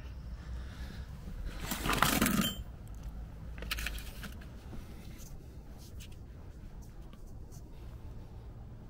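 Handling of a steel hitch pin lock and receiver shackle mount: a brief scraping rustle about two seconds in, then a few light metallic clicks.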